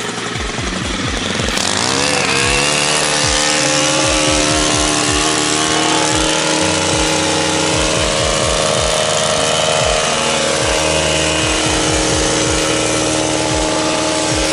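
Two-stroke engine of a Stihl long-reach gas hedge trimmer revving up to full throttle about two seconds in, then running steadily at high revs.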